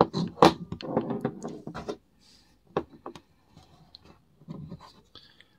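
Handling noise: scraping and rubbing with sharp clicks of small hard objects, densest in the first two seconds, then scattered single clicks.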